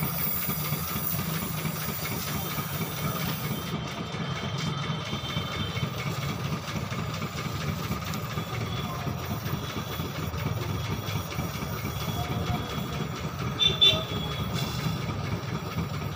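Gas brazing torch burning steadily, its flame heating an aluminium car AC pipe joint while filler rod is melted in. A short, louder sound comes near the end.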